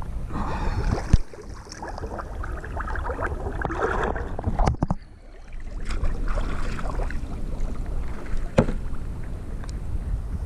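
Canal water sloshing and splashing as someone wades and pushes a floating plastic basin of garbage, with three sharp knocks spread through it.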